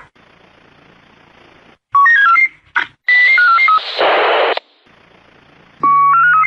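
Police two-way radio signalling: three quick runs of single beeps that step up and down in pitch, the tone sequences a radio sends to identify a unit at the start or end of a transmission. Loud bursts of static hiss come with the second run, over a faint steady background hiss.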